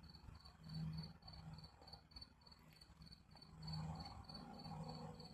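Faint cricket chirping, a steady high-pitched pulse repeating about four times a second, over a soft low hum that swells and fades.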